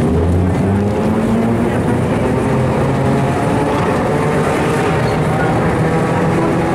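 Historic electric tram running along its track, heard from inside the car: a steady rumble of wheels on rails with the motor's low hum.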